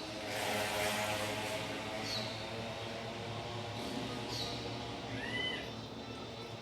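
Small birds chirping: short high falling chirps about every two seconds, with an arched, two-toned call about five seconds in, over a steady low mechanical hum.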